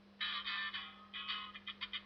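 A cellphone ringtone starts about a fifth of a second in, played through the phone's small speaker: a thin, tinny, choppy run of tones with no bass, stopping and starting in short bursts.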